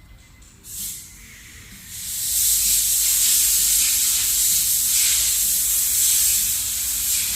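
A pressurised spray hissing: a short puff about a second in, then a long steady blast from about two seconds in.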